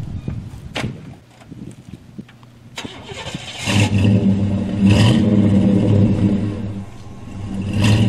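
Chevrolet Z71 pickup truck's engine starting about three and a half seconds in, after a couple of sharp knocks, then running and revving up in two swells as the lumber-loaded truck pulls away.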